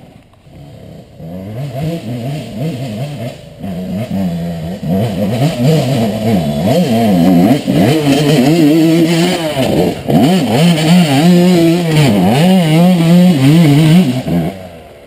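Dirt bike engine revving, its pitch rising and falling over and over as the throttle is worked. It gets louder about five seconds in and drops away near the end.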